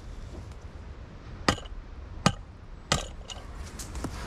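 A rock hammering the rim of a round metal pot, three sharp strikes in the second half, denting the rim to form a pouring spout.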